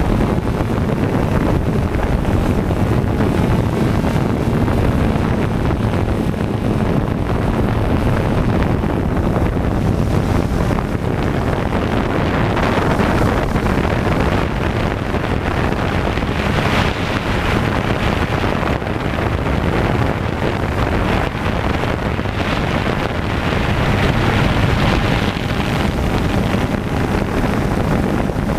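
Quadcopter's electric motors and propellers running steadily in flight, heard from the GoPro mounted on the drone itself as a loud, even rushing drone mixed with wind buffeting the microphone.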